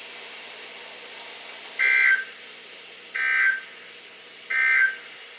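Emergency Alert System End of Message (EOM) signal on a NOAA Weather Radio broadcast: three short bursts of digital data tones, about a second apart, marking the end of the weekly test, over steady radio hiss.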